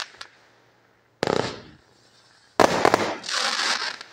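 Aerial fireworks bursting overhead. A sharp bang comes about a second in, then more bangs just past the middle, followed by a spray of crackling that fades near the end.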